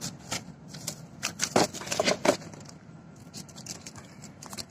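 Irregular sharp clicks and rustles from a mesh net bag of freshly caught tilapia being handled, busiest in the middle second or so and fainter near the end.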